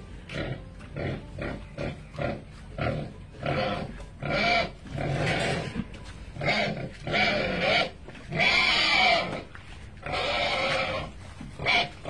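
A pig grunting: short grunts in quick succession, then from about four seconds in, four longer, louder calls, each about a second long.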